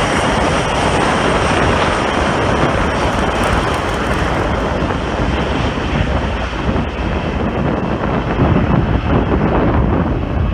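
Bombardier CRJ regional jet's rear-mounted turbofan engines running as it rolls along the runway and away. Its high whine fades over the first few seconds, leaving a steady rumble mixed with wind noise on the microphone.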